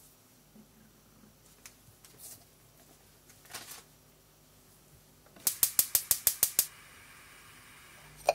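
Gas hob's auto-igniter clicking fast, about eight clicks a second for just over a second, until the burner lights and runs with a steady soft hiss. Before that, a light knock as a wooden drop lid is set on the clay pot.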